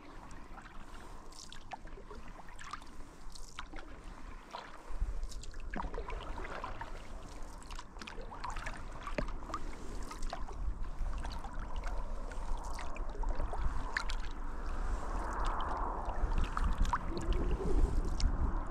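Water lapping and trickling along a kayak's hull as it is paddled across a lake, with many small splashes and drips. A low rumble joins about five seconds in.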